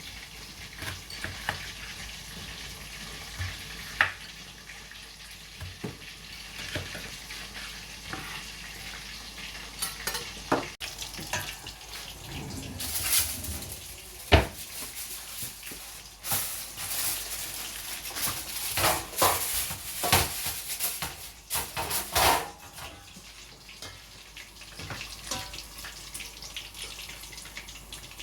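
Oil sizzling in a frying pan, with scattered clinks and knocks of utensils and dishes, and a busier stretch of louder clatter and sizzle in the middle.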